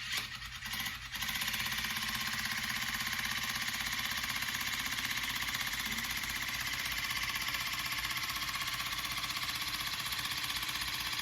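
Hanasco H100 cordless water flosser pump running on its normal setting with the plaque seeker tip, a steady rapid buzz. It starts with a few brief knocks, settles in about a second in, and cuts off near the end.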